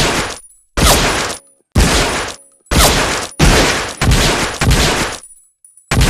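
M1911A1 .45 ACP pistol fired as single shots, about one a second, each shot with a short echoing tail; about seven shots follow the fading tail of one fired just before.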